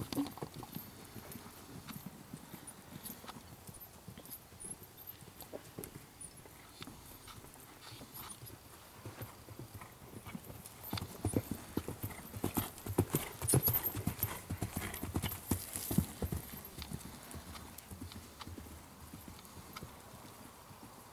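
A ridden horse's hoofbeats on the dirt footing of a riding arena: a steady run of dull thuds that grows loudest in the middle of the stretch as the horse comes near, then fades.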